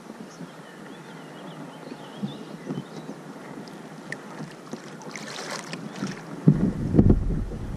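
Water trickling and lapping around a kayak moving through lily pads, with a brief splash about five seconds in. Near the end, wind buffets the camera's microphone with a low rumble.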